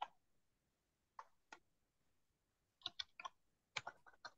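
Faint typing: separate keystroke clicks, a couple at first and then a quicker run of them from about three seconds in.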